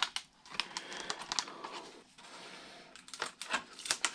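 Irregular clicks, ticks and light crackles of a cracked, thin clear plastic RC-plane canopy being handled and flexed in the hands, in quick clusters.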